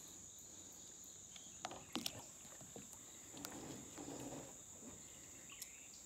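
Steady high-pitched buzz of an insect chorus, with a few faint knocks about two seconds in.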